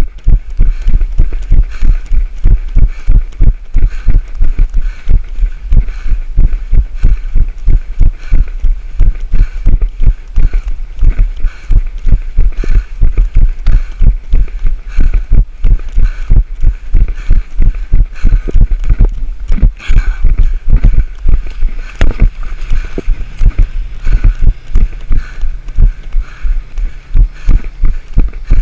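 A runner's footfalls jolting a body-worn action camera: loud, even thumps about three a second at a steady running pace, with a hiss of wind and movement over them.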